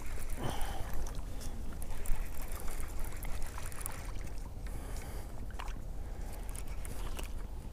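Rustling and handling noise against a chest-mounted camera's microphone, with scattered clicks over a steady low rumble, while a small bass is landed.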